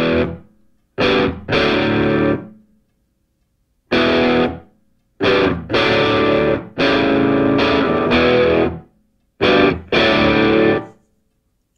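Background music: distorted electric guitar playing loud chords in short stop-start bursts, each cut off suddenly with silence between.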